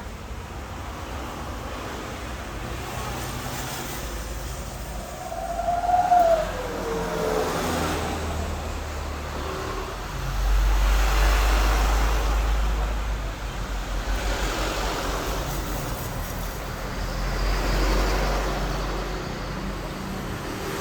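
Passing road traffic, its low rumble swelling about ten seconds in and again near the end, with a short tone that rises then falls about six seconds in.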